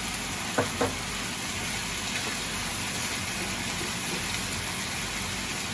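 Mushrooms and wood ear frying in sauce in a nonstick pan, a steady sizzle, as a spatula stirs them; two light knocks of the spatula against the pan a little over half a second in.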